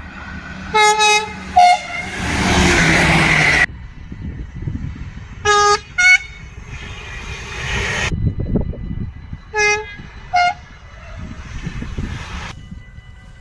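Dutch trains' two-tone horns sounding three short signals, each a lower note followed by a higher one, with the noise of a passing train between them. The train noise breaks off suddenly twice.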